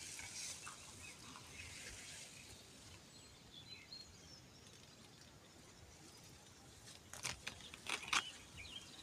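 Faint outdoor evening ambience with a few scattered high bird chirps. About seven seconds in comes a short run of sharp clicks and rustles, the loudest sound here.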